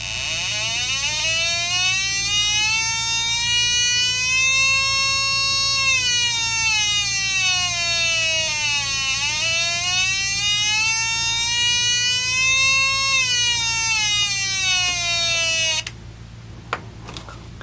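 Electric siren kit, a beginner's soldered electronics kit, wailing: one buzzy tone with many overtones that rises slowly, falls, rises again and falls, in two long sweeps, then cuts off suddenly near the end.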